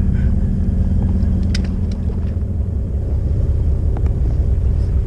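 Small fishing boat's engine running at idle: a low steady rumble, with a steady hum that fades out about halfway through.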